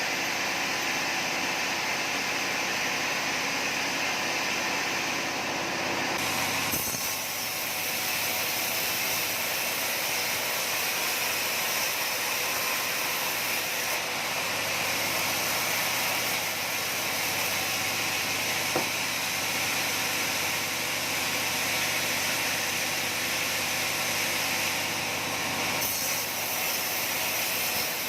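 Sawmill saw running and cutting through wood with a steady, loud noise over a low machine hum. The sound turns brighter and hissier about six and a half seconds in and shifts again near the end.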